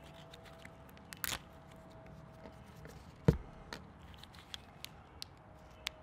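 Small handling noises of gloved hands working a plastic packet of brake lubricant: a brief crinkle about a second in, a single sharp click about three seconds in, and scattered light ticks.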